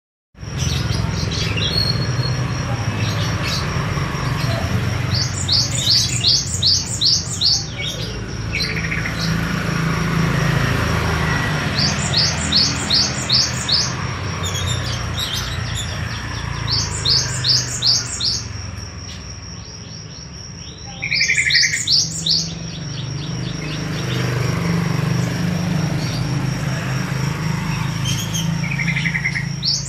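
Gelatik wingko singing: repeated runs of about eight rapid high chirps every few seconds, with a few shorter calls in between. A steady thin high tone and a low hum run underneath.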